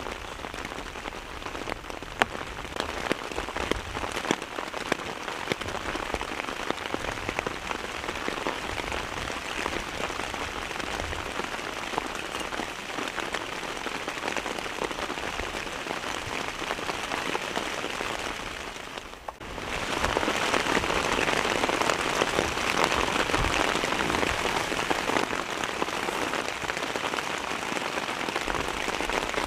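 Heavy rain falling steadily, with many sharp individual drop hits. About two-thirds of the way through it briefly falls away, then returns louder.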